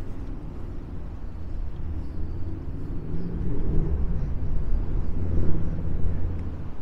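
Wind buffeting the microphone, an unsteady low rumble that gets stronger about halfway through.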